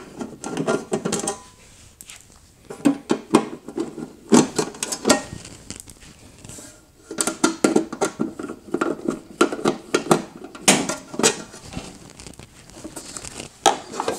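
Quarter-inch nut driver turning bolts out of a refrigerator's sheet-metal control-box cover, with clusters of quick metallic clicks and rattles and short pauses between them. Near the end the loosened metal panel is lifted off.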